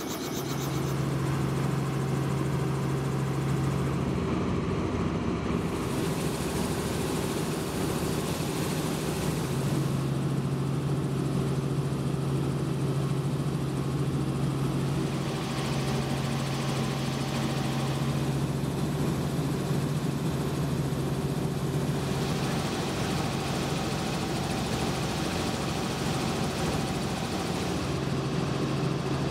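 Helicopter in steady flight, heard from inside the cabin: a continuous engine and rotor drone with a steady low hum that drops out briefly a few times.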